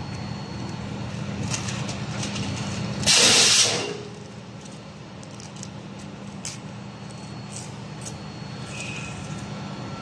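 Production machinery running with a steady hum and a few faint ticks, broken about three seconds in by one loud, hissing burst lasting under a second.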